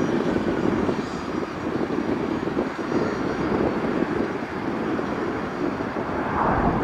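Boeing 737's jet engines at takeoff thrust: a steady rumble with a faint high whine above it, growing louder near the end.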